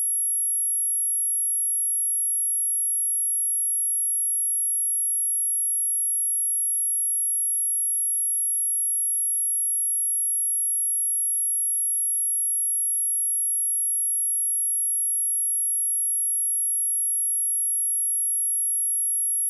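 A steady, high-pitched pure sine tone at 11225 Hz, one unchanging pitch held throughout: a speaker test tone, also played to shake water and dust out of a phone speaker.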